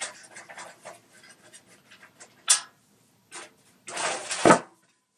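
Handling noise from the iONZ KZ10W PC case's thumb screws and sheet-metal side panel. Small clicks and scrapes are followed by a sharp click about halfway through. Near the end comes a longer scraping rasp that ends in a knock as the side panel comes away.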